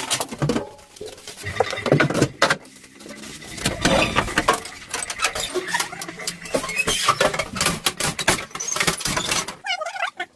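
Irregular clinks, knocks and scraping of hand tools and metal parts being worked on.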